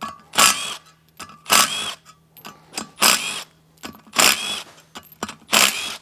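Cordless impact driver with a 1/2-inch socket backing bolts out of the final drive's spindle protector cover. It runs in five short bursts about a second apart, with light metallic clicks between them.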